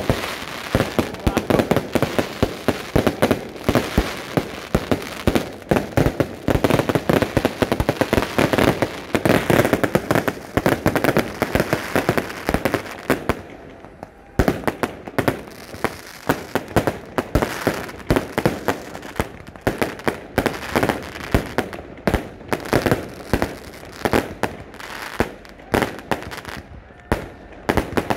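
Many fireworks going off at once: a dense, near-continuous run of bangs and crackling pops, easing briefly about halfway through before picking up again.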